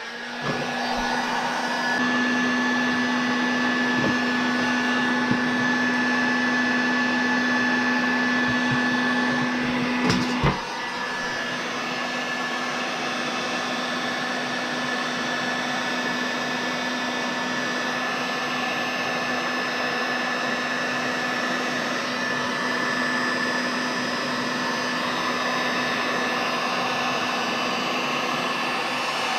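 Electric heat gun running steadily: a continuous rush of blown air with a motor hum and a high whine. About ten seconds in there are a couple of knocks, and after them the sound settles a little quieter.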